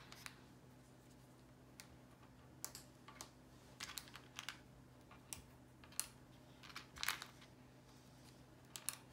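Small wooden stamp-game tiles clicking and tapping irregularly as they are picked out of a wooden tray and set down on a wooden table, while a hundred is exchanged for ten tens.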